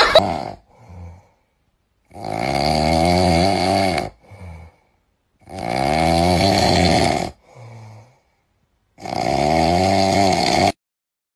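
A man snoring loudly while dozing sitting up: three long snores, each lasting nearly two seconds, with short quieter breaths between them.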